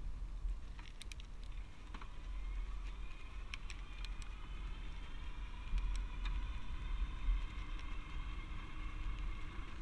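E-bike ridden along a paved path: low wind rumble on the microphone, a faint steady motor whine, and a few light clicks.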